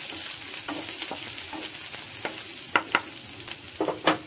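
Chopped onion, green chillies and cumin sizzling in hot oil in a non-stick frying pan while a spatula stirs them, scraping and clicking against the pan, with a few sharper knocks in the second half.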